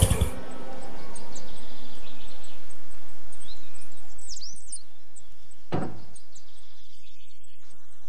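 Music cuts off at the start, leaving a steady low background in which birds chirp a few times, followed by a single knock about six seconds in.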